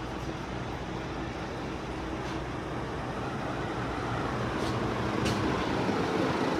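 A room full of ceiling fans all running on high speed at once: a steady rush of moving air over the low hum of their motors, growing a little louder toward the end, with a few faint ticks.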